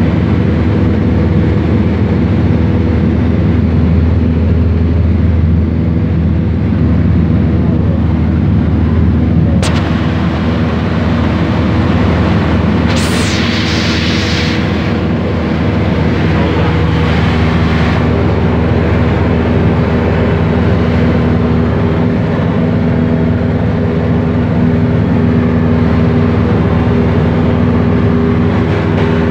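Piston engine and propeller of a high-wing single-engine light aircraft droning steadily in flight, heard inside the cabin. A sharp click comes about ten seconds in, and a short burst of hiss a few seconds later.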